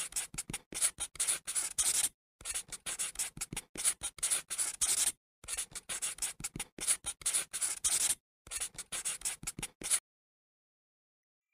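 Handwriting sound effect: many quick, scratchy strokes of a writing tool, in four runs with short pauses between them, stopping about ten seconds in.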